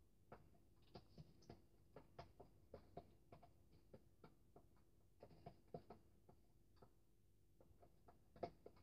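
Faint, irregular ticking of a spoon against a plastic tub as a thick glue-and-paint slime mixture is stirred, a few ticks a second.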